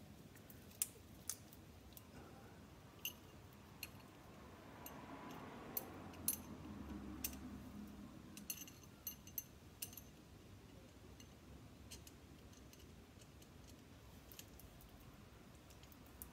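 Faint, scattered sharp metallic clicks and ticks, about a dozen at irregular intervals, with a soft rubbing sound in the middle. They come from hand tools and bolt hardware being worked while the clamp plate is tightened onto the drive shaft.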